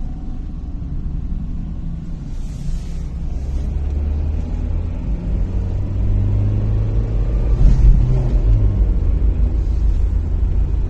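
Low, steady rumble of a car's engine and tyres heard from inside the cabin while driving. It grows louder about halfway through.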